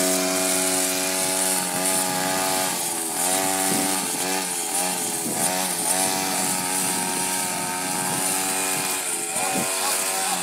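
Gas string trimmer's two-stroke engine running at high speed while cutting grass, its pitch dipping briefly and recovering several times.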